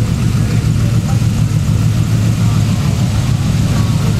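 Hot rod roadster's engine idling with a steady low rumble as it creeps past at walking pace.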